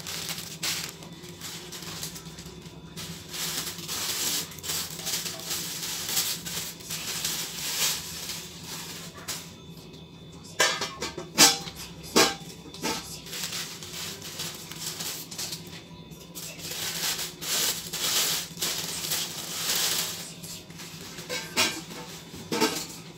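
Pyrex glass dishes and their lids clinking and rattling against a chrome food-warmer stand as the set is put together, with rustling between the handling noises. A cluster of sharp clinks comes about halfway through.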